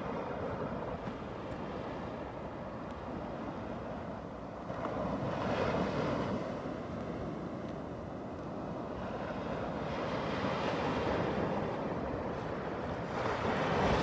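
Ocean surf: small waves breaking and washing up a sandy shore, swelling louder about three times as each wave comes in.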